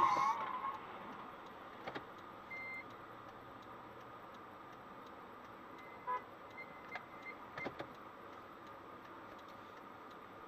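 Low steady hum of a car cabin, with a few faint clicks and a handful of short, high beeps: one about two and a half seconds in, and several near the seven-second mark.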